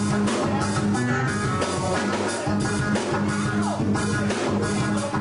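Music with a steady drum beat and sustained instrument tones.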